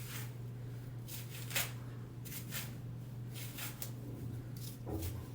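A comb being drawn through a twisted hair extension: a string of short, scratchy swishes, roughly one to two a second.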